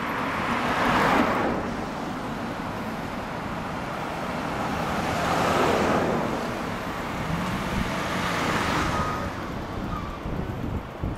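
Street traffic: cars passing close by one after another, each a swell of engine and tyre noise, about a second in, around six seconds and around nine seconds.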